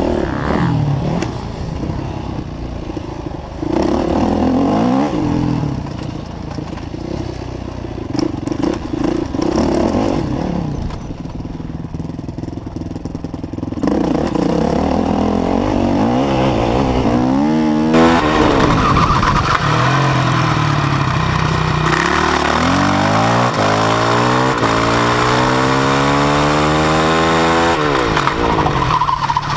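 Yamaha YZ450F single-cylinder four-stroke motocross engine under way, its note climbing and dropping back again and again as the throttle opens and closes. It gets louder from about halfway, with long climbing revs near the end.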